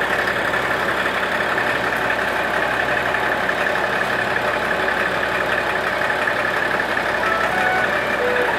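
Diesel railcar engine idling steadily. Near the end a few short pitched notes sound over it.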